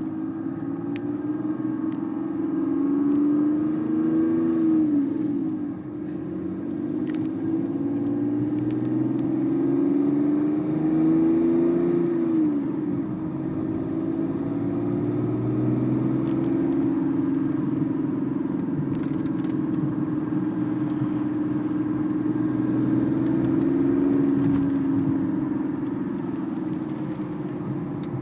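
BMW 330d E46's 3.0-litre straight-six diesel engine running, its pitch rising and falling gently three times as the revs come up a little and drop back.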